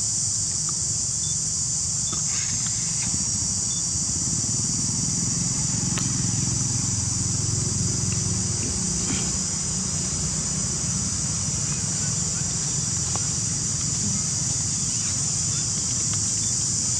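Steady high-pitched insect chorus, with a low rumble underneath and a few faint clicks.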